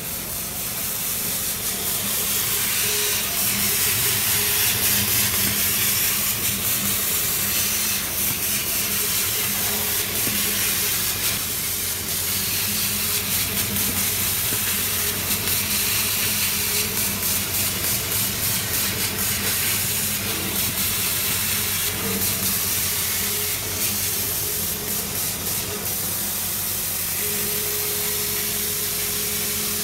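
CO2 laser cutting machine running on wood: a steady hiss over a low hum, with a faint higher tone joining near the end.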